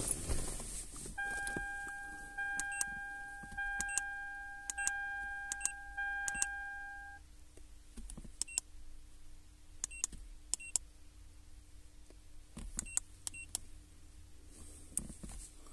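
Handheld OBD2 scan tool's buttons clicking, each press giving a short high beep, about a dozen times as its menus are stepped through. A steady electronic tone sounds from about a second in and stops after about six seconds.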